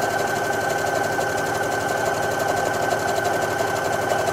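Brother Innov-is NV1300 computerised sewing machine running steadily at raised speed, stitching a one-step buttonhole automatically: fast, even stitching with a constant motor whine.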